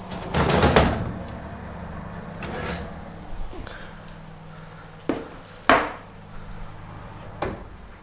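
An oven door opening with a rattling scrape as the baking tray is drawn out, then a metal baking tray with roast chicken set down on a wooden cutting board with two sharp knocks, a little over five seconds in and again just before six. A steady low hum runs underneath.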